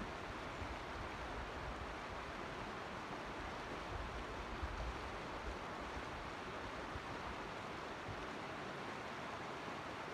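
Steady rush of a flowing mountain creek, with brief low wind rumbles on the microphone about four seconds in.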